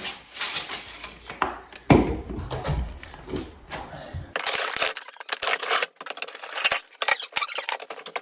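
Household items being moved about by hand in a cupboard: rustling and a run of small knocks and clatters, with a couple of sharper knocks about two seconds in.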